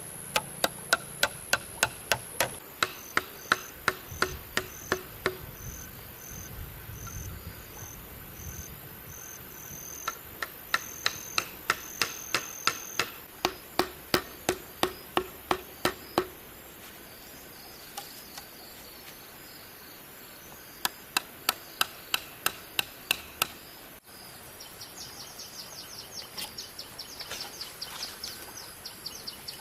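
Repeated blows of a tool striking bamboo, about three a second, in three runs with pauses between, while insects shrill steadily and chirp in quick pulses.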